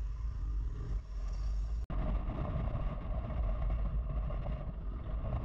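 Motorcycle engine running while riding, heard from the passenger seat, under steady wind rumble on the microphone. The sound drops out for an instant about two seconds in, then carries on the same.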